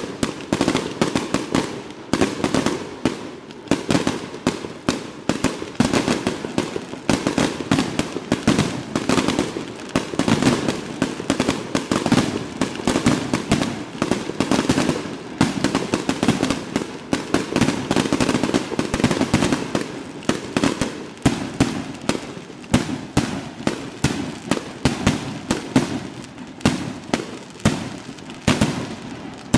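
Fireworks display: aerial shells going off in a rapid barrage, several sharp bangs a second.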